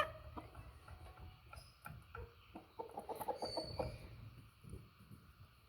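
Heavy-breed hens clucking: a loud short squawk at the very start, scattered clucks, then a quick run of clucking about three seconds in.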